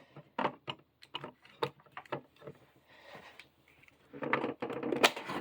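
Scattered plastic clicks and knocks from a DeWalt cordless hand vacuum being handled, with a busier stretch of handling noise about four seconds in.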